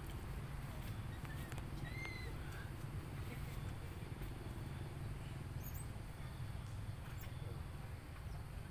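Steady low outdoor rumble with a few faint short chirps, one about two seconds in and thin high ones near the end.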